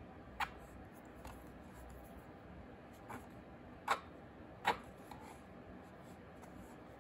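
Light clicks and taps of small clay-sculpting tools handled against a plastic work tray while working a slab of air-dry clay, five in all, the two loudest about four and five seconds in.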